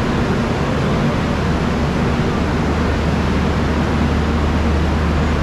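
Steady railway-platform din beside a standing train: an even rushing noise with a low steady hum that strengthens about a second and a half in.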